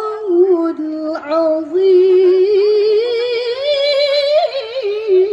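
A qori's solo voice singing a slow, ornamented melody without accompaniment, with long held notes and melismatic turns, climbing higher about four seconds in before settling back.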